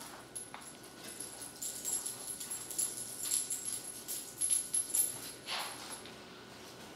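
A chihuahua's claws clicking on a hardwood floor as it walks about: a run of quick, irregular taps, with a faint high metallic jingle alongside them.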